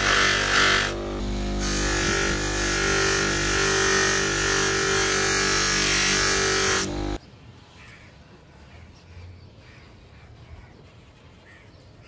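Bench grinder with a cloth buffing wheel running at speed, a steady motor hum with a hissing rub as polished steel parts are held against the wheel. About seven seconds in it cuts off abruptly to a quiet outdoor background with a few faint bird calls.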